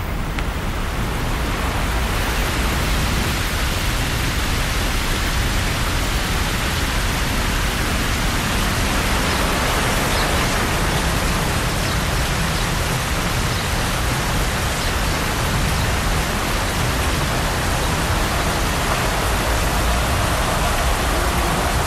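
Steady heavy rain, a dense even hiss that swells in over the first couple of seconds and then holds.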